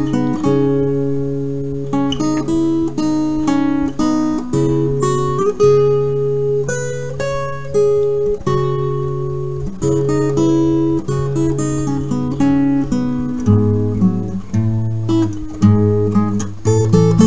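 Background music on acoustic guitar: plucked notes ringing and fading over a held bass line, which drops to a lower note about three-quarters of the way through.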